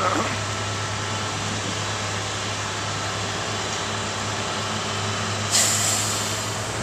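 Volvo semi-tractor's diesel engine running steadily, with a sharp air-brake hiss about five and a half seconds in that fades over about a second.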